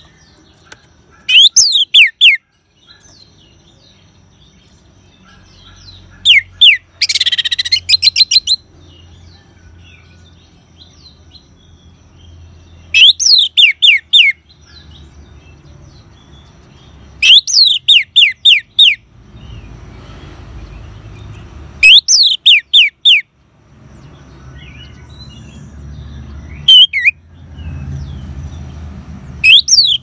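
Orange-headed thrush (anis merah) giving its ngeban call, loud and close. The call comes in short bursts of four or five sharp whistles that slur steeply downward, repeated about every four to five seconds, seven times in all. The burst about seven seconds in is harsher than the rest.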